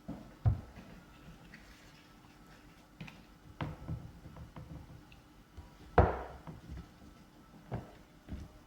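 A few scattered soft knocks and taps, the loudest about six seconds in.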